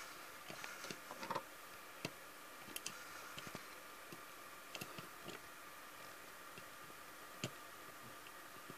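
Light, irregular clicks and taps as a diecast model car and the plastic ramps of a model car transporter are handled, with the sharpest click about seven and a half seconds in.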